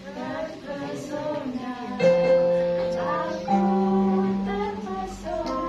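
Acoustic guitar playing, with a voice singing along; strong strummed chords ring out about two seconds in and again halfway through.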